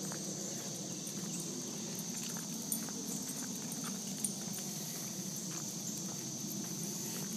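Footsteps of a walk with scattered light clicks, over a steady high-pitched insect drone and a low outdoor rumble.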